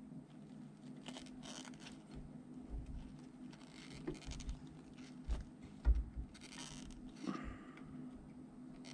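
Thin metal pick scraping and scratching at softened tar inside a Bakelite capacitor block gripped in pliers, in short scrapes a few seconds apart with light handling bumps. The tar is being dug out to restuff the block with a new capacitor.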